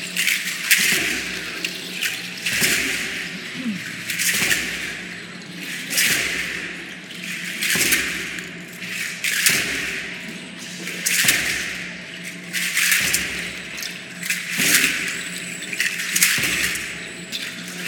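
Aztec dancers' ankle rattles shaking in rhythmic bursts with their steps, a burst of dry rattling about every one and a half to two seconds, over a faint steady low hum.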